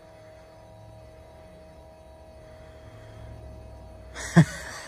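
Electric FASS fuel lift pump running with a faint, steady whine with the key on, building fuel pressure well above the expected 55 psi. A few sharp knocks near the end.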